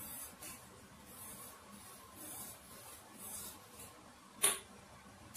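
A metal ladle stirring broth in a stainless steel stock pot: faint swishes about once a second, then one sharp clink of metal on metal about four and a half seconds in.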